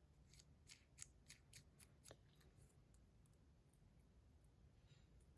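A run of faint, light clicks and taps, about a dozen in the first two and a half seconds, from small metal fidget-spinner parts being handled.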